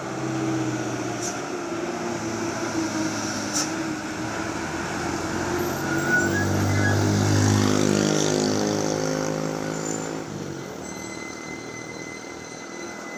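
Heavy truck engine running, growing louder about six seconds in, then dropping away abruptly near the ten-second mark.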